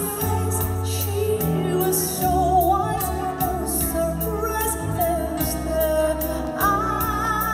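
A woman singing a slow ballad into a microphone, her voice held on long notes with vibrato, over live electronic-keyboard accompaniment with a light steady beat.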